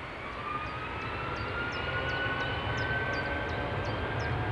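Jet airliner's engines whining, the whine slowly rising in pitch over a low rumble that grows louder as the aircraft comes closer.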